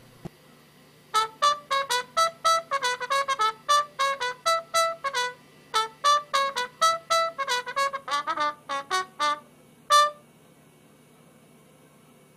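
Solo brass melody, trumpet-like, played as a quick run of short, detached notes. A last single note comes after a brief gap about ten seconds in.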